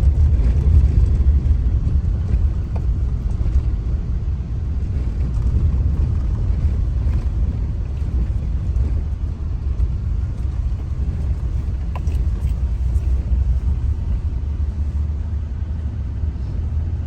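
Steady low road rumble and engine noise heard from inside a moving car, slightly louder in the first couple of seconds.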